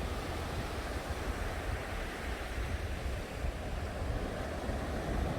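Sea surf washing onto a beach, a steady wash of noise, with wind rumbling on the microphone.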